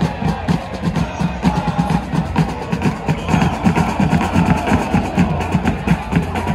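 Football supporters' drums beaten in a fast, steady rhythm, with a crowd of fans chanting along.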